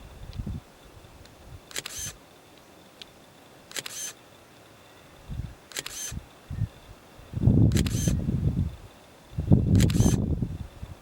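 Camera shutter firing at a steady interval, five times about two seconds apart, each a short sharp mechanical click sequence. Gusts of wind rumble on the microphone in the second half.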